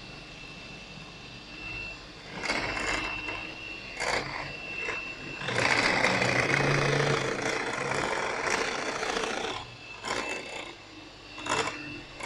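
Electric hand mixer running, its twin beaters whipping cream in a glass bowl toward soft peaks, with a steady high motor whine. For about four seconds midway the sound grows much louder and rougher, with shorter loud spells before and after.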